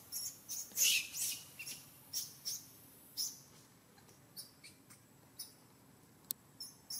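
Young pig-tailed macaque squealing: a series of short, high-pitched squeals, loudest about a second in, then fainter and more spaced out.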